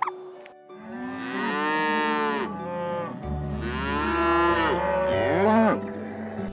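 A cow mooing twice, two long calls of about two seconds each, the pitch rising and then falling within each.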